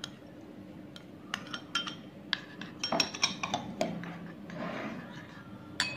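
Spoon clinking and scraping against ceramic bowls as chopped onion is scraped from a small bowl into a bowl of yogurt. A run of light clinks comes in the middle, then a brief soft scrape and one last clink near the end.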